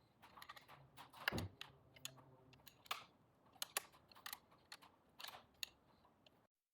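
Faint scattered metal clicks and taps of a motorcycle front fork leg being slid into the triple clamps, which are held open with two large flat screwdrivers. The loudest, a little over a second in, falls in pitch.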